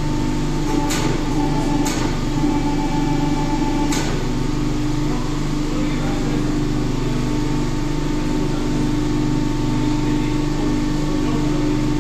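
Hidroteknik HTME 100 die-casting machine's motor and hydraulic unit running with a steady hum, with three short sharp sounds about one, two and four seconds in.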